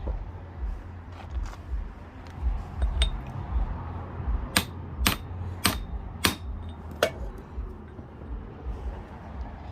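Small hammer striking a brass punch to drive the U-joint out of the front driveshaft yoke: a few light taps, then five sharp metallic strikes about half a second apart starting around the middle. The last strike leaves a short ring.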